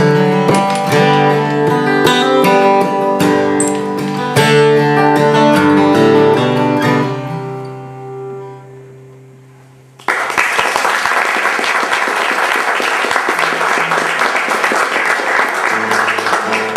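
Acoustic guitar playing the closing chords of a song, which ring out and fade away over several seconds. About ten seconds in, an audience breaks into applause that carries on to the end.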